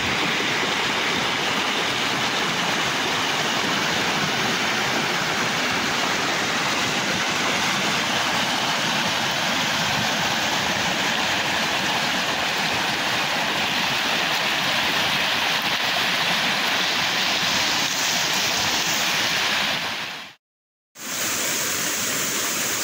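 River water rushing over rocky rapids and small cascades, a steady dense rush of whitewater. It cuts out completely for about half a second near the end, then resumes.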